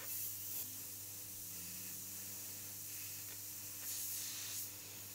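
An airbrush spraying paint in two short bursts of air hiss, at the start and again about four seconds in, as fine highlights are laid on. A steady low hum runs underneath.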